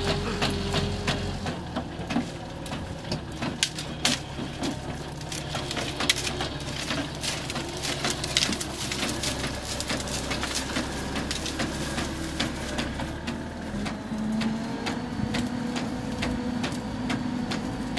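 SaMASZ PG150 hydraulic cutter-bar shears on a telehandler arm cutting through shrubs: many sharp cracks and snaps of branches over the telehandler's diesel engine running steadily. The engine note shifts higher about 14 seconds in.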